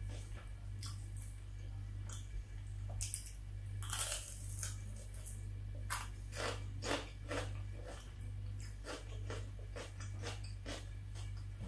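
Close-up chewing and crunching of crisp food, most likely raw red bell pepper, with a loud bite about four seconds in and a quick run of crunches between six and seven seconds.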